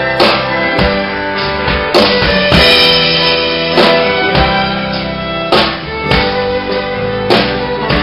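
Amplified instrumental music: a fiddle over a backing of drum kit and guitar, with sharp drum hits every second or so.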